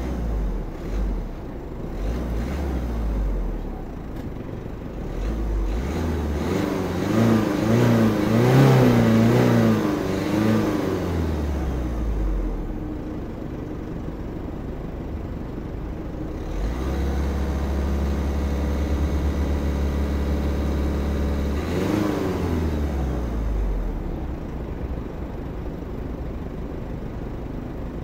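Peugeot 308's 1.6 BlueHDi four-cylinder turbodiesel idling and being revved: a few short blips, then a long rev that rises and falls back, then a rev held steady for about five seconds before it drops back to idle.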